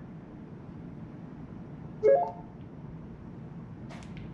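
BumpBoxx MicroBoom pendant Bluetooth speaker giving a short electronic prompt tone that steps upward in pitch about two seconds in as its button is pressed and held to change the volume. A few sharp button clicks follow near the end.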